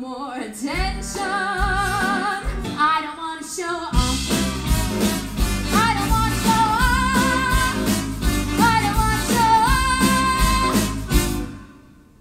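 A woman singing held notes with vibrato, backed by a live band. The full band with drums and bass comes in about four seconds in, and the music stops shortly before the end.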